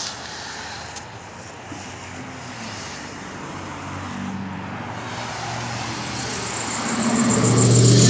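Street traffic passing on a slushy road. Near the end a vehicle's engine hum grows louder as it draws close.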